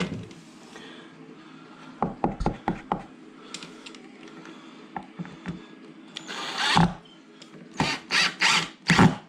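A handful of sharp clicks and knocks, then a cordless drill driving screws in a series of short trigger bursts: one longer run and four quick ones near the end.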